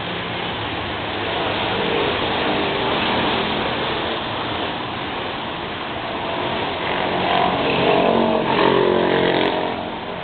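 Motor vehicle running amid road noise. It grows louder about seven seconds in and eases off near the end.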